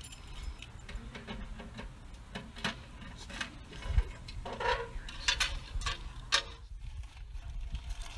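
Scattered light clicks and metallic clinks, busiest in the middle, as the latch and door of a metal mailbox are worked open, over a low rumble of wind on the microphone.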